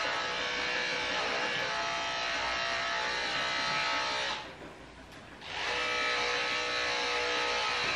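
Electric dog grooming clippers running with a steady buzzing hum while shaving a dog's coat short. The buzz drops away for about a second midway, then comes back.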